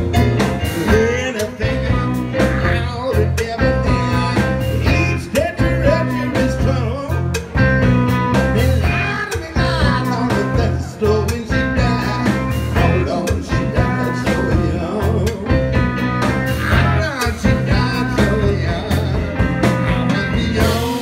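Live blues band playing with a steady beat: piano on a stage keyboard, electric bass and drums.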